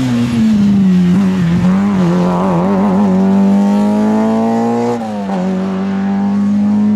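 Historic rally car engine running hard at high revs close by. The pitch wavers at first, then climbs, then drops abruptly with a gear change about five seconds in before pulling on steadily.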